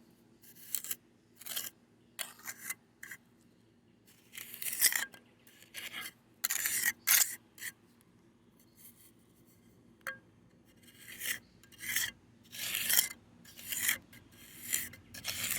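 Short rasping strokes of a tool rubbing and scraping over a fresh concrete patch on a chipped slab corner, working the wet mix into place. The strokes are irregular at first and come about one a second toward the end.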